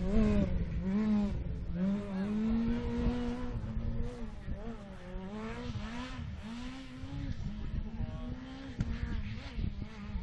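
Rally car engine revving hard through repeated gear changes, its pitch climbing and then dropping with each shift, growing fainter over the first few seconds as the car drives away.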